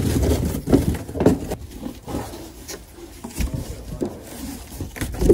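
Cardboard boxes being handled and folded into shape: irregular knocks, flaps thudding and card scraping against card, with a loud hit at the start and another near the end.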